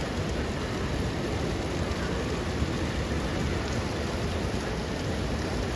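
Indoor water-feature fountain splashing steadily, with the general din of a large terminal hall behind it.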